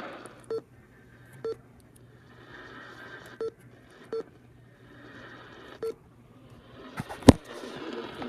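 Radio broadcast receiver giving faint hiss, with five short beeps at uneven intervals and a loud sharp static crackle near the end.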